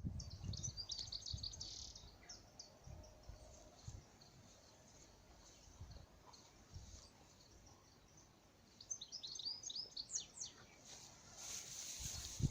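Bird singing: two quick phrases of rapid, high chirping notes, one at the start and another about nine seconds in, with a few soft low thumps in between.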